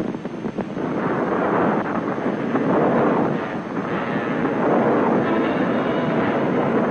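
Dense rushing noise of an avalanche of snow, ice and rock set off by an earthquake, growing louder about a second in and then holding steady.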